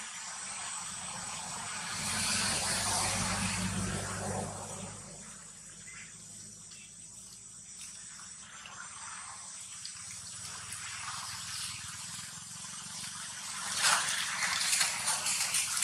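Steady rustling hiss of dry leaf litter, with a run of crackling, crunching steps through the dry leaves starting about fourteen seconds in, as a macaque walks across them.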